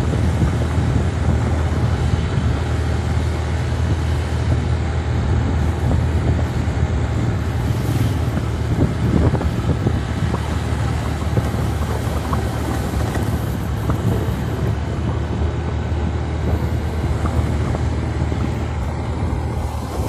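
Motorcycle running steadily on the move, a constant low engine hum mixed with wind noise on the microphone.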